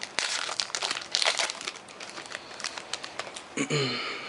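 Crinkling and rustling of a pack of trading cards being handled, busiest in the first two seconds and thinning out after. A brief murmur of voice comes near the end.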